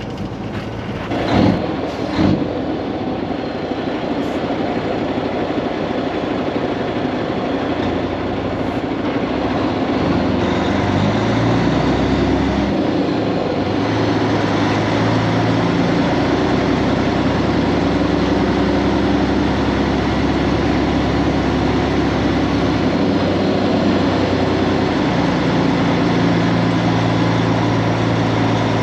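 Kenworth W900 semi truck's Cummins X15 diesel engine running as the truck drives, with its low drone stepping up in pitch about ten to fourteen seconds in. Two short knocks near the start.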